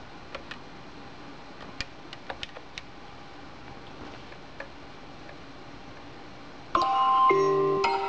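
Smartphone ringing with a marimba-like ringtone melody, starting suddenly about seven seconds in: an incoming call placed from the rewired touch-tone landline has gone through. Before it, only a few faint clicks.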